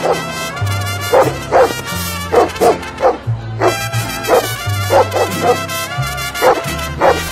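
Police dog barking repeatedly, about two barks a second and often in pairs, over background music with a low bass line.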